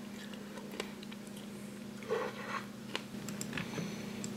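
A person chewing and eating small pieces of food, with faint scattered clicks over a steady low hum.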